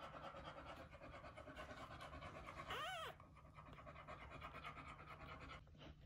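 English springer spaniel panting rapidly while whelping, faint and fast, stopping near the end. About halfway through there is one short whine that rises and falls in pitch.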